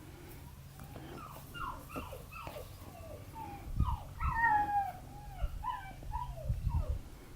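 Border collie puppy whining and yipping in a run of short high calls, each sliding down in pitch, with the loudest and longest calls about halfway through. A few low bumps come in under the calls.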